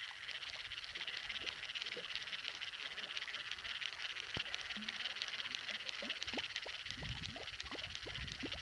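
Steady high, rapid chirring of a dense insect chorus, with a few soft scattered ticks beneath it.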